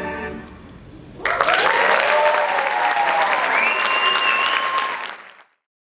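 The last notes of the music fade, and about a second in an audience bursts into applause with cheering voices, which cuts off abruptly near the end.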